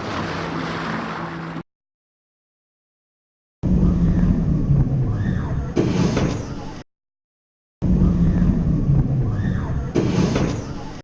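The tail of a music cue cuts off, and after a silence a short recording of a theme-park ride plays twice. Each play has a steady low rumble with voices over it and a loud rushing burst near its end.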